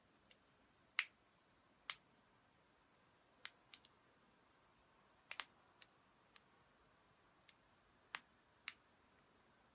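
Joints cracking: about a dozen short, sharp pops at irregular intervals, the loudest about a second in, some in quick pairs.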